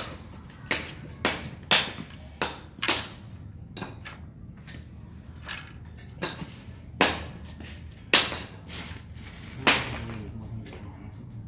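Sharp, irregular metallic clicks and clinks from a portable gas stove being worked by hand, about a dozen over the stretch, each with a brief ring.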